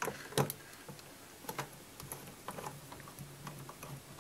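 Screwdriver turning small Phillips screws out of the aluminium top cover of a Bendix/King KX-165 avionics radio: light, irregular clicks and ticks of metal on metal, the two sharpest in the first half-second.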